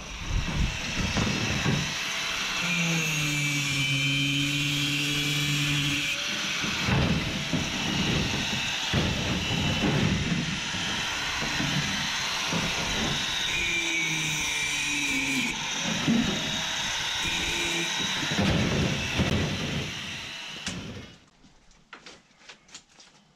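Angle grinder cutting through scrap copper pipe, its cutting disc whining steadily and its motor pitch sagging and recovering as it bites into the metal.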